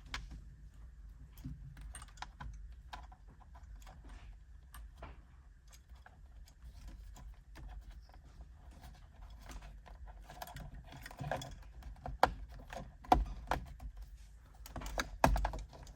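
Faint, scattered small clicks and light plastic handling sounds as a new cruise control switch is worked into its place in a 1999 Ford Ranger's steering wheel, with a few sharper clicks near the end.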